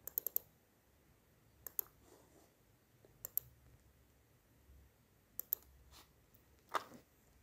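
Faint clicks of a computer keyboard and mouse: a quick triple at the start, then pairs of clicks every second or two. Near the end there is one short, softer noise.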